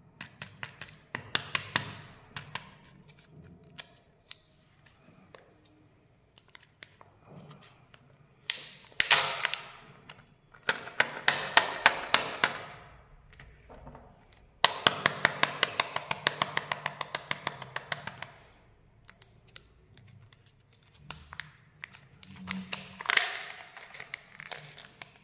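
Kinder Joy plastic egg being handled and its peel-off film lid torn back, crackling and crinkling in about five bursts of rapid clicks with quiet gaps between; the longest bursts come in the middle.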